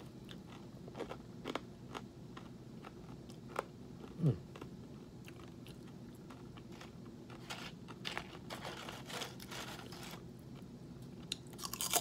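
Someone biting and chewing crisp, puffed microwaved pork rinds (Lowrey's hot and spicy bacon curls): scattered crunches and crackles, busiest in the second half, with a brief low falling hum a little over four seconds in.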